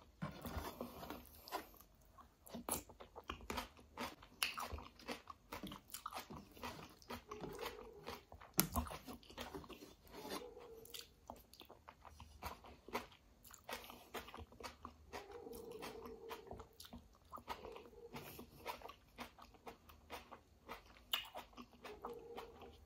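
Close-miked chewing of kadhi chawal, a rice and yogurt-gram-flour curry eaten by hand: a steady run of small, quick, wet mouth clicks and crunches, with one louder click about eight and a half seconds in.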